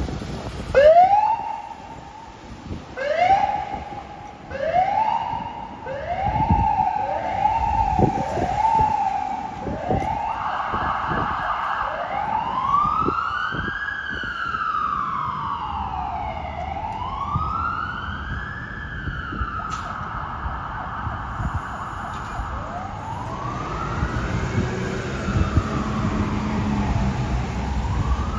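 Emergency vehicle siren on a fire department rescue captain's vehicle responding code 3. It first sounds a string of short whoops, each rising quickly and holding, and about ten seconds in it changes to a slow wail that rises and falls over several seconds.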